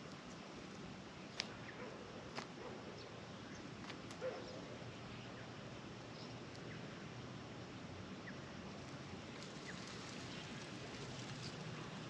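Quiet outdoor backyard ambience: a steady soft hiss with a few faint short high bird chirps, broken by three sharp clicks in the first half, the third the loudest.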